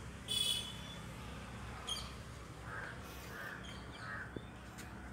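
A crow cawing three times in quick succession, a little past the middle. About half a second in there is a brief high-pitched squeak, and there are a few light clicks.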